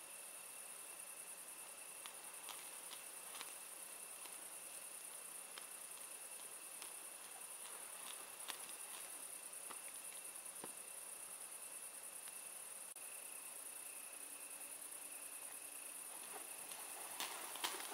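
Crickets chirring steadily in a high, even trill. There are scattered faint clicks throughout, and a cluster of louder crackles and clicks near the end.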